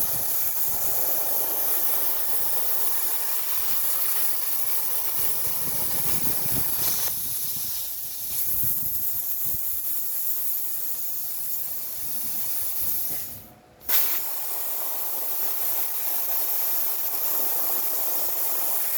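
CNC plasma torch cutting metal: a steady, loud hiss of the arc and air jet. About thirteen seconds in the hiss dies away briefly, then comes back with a sharp burst as the arc restarts for the next cut.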